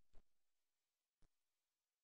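Near silence, broken by two faint computer mouse clicks, one right at the start and one about a second later.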